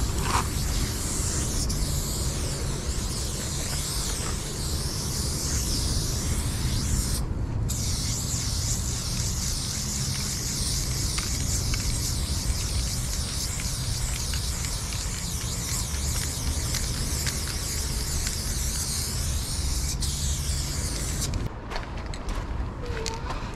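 Aerosol spray paint can hissing in long sweeping strokes as a graffiti throw-up is painted, with a brief pause about seven seconds in; the spraying stops near the end. A steady low rumble runs underneath.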